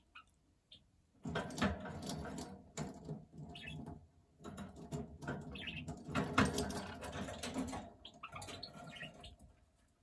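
Budgerigar warbling: a rapid, chattering mix of clicks, squeaks and short chirps that starts about a second in, then eases into a few fainter separate high chirps near the end.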